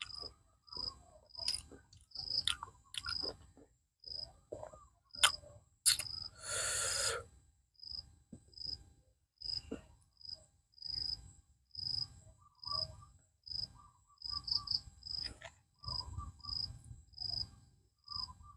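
Raw prawn shells cracking and snapping as they are peeled by hand, in irregular clicks with a rustle about six and a half seconds in. Behind them an insect chirps steadily, about twice a second.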